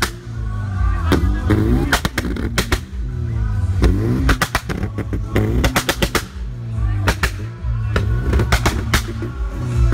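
VW Jetta Mk2 GTI 2.0 8v held on launch control, its exhaust popping and banging in rapid volleys of shots about every second over the engine's steady drone. Music and crowd voices are behind it.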